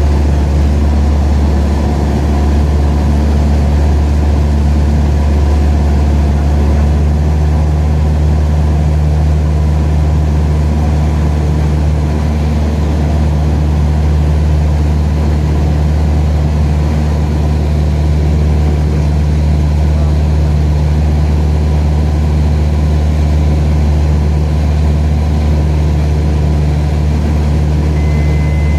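Cessna 172's piston engine and propeller droning steadily and loudly, with an even low hum and no change in pitch.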